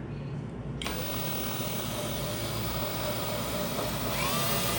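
Power drill running steadily while fixing a wall shelf, its motor whine rising in pitch near the end as the trigger is squeezed harder.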